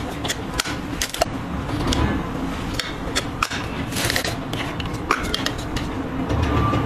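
Clear plastic press-on nail case handled close up, its hinged lid opened and closed: irregular sharp plastic clicks and taps, with scraping and rustling of the packaging.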